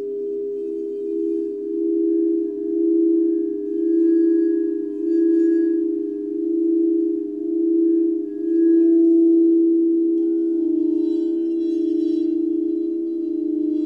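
Alchemy crystal singing bowls sounding a sustained low hum that swells and wavers about once a second. About ten seconds in, higher ringing tones join above it.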